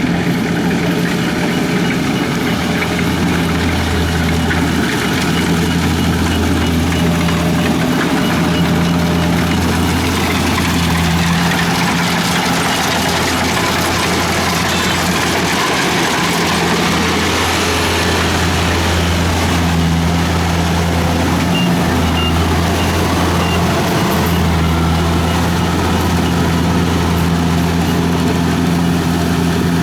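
Kubota DC-70 combine harvester's diesel engine running steadily with a loud, low hum.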